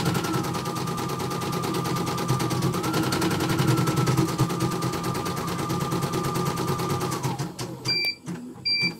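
CNY portable computerized embroidery machine stitching at speed: a fast, even rattle of needle strokes over a steady motor whine. About seven seconds in the whine winds down and the stitching stops. Two short beeps follow, the machine signalling the end of one thread colour after a smooth run.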